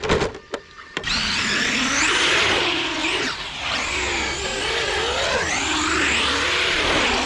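Traxxas E-Revo 2.0 RC monster truck driving, its brushless electric motor and drivetrain whining and rising and falling in pitch with the throttle, over tyre noise on concrete. A few sharp clicks come in the first second.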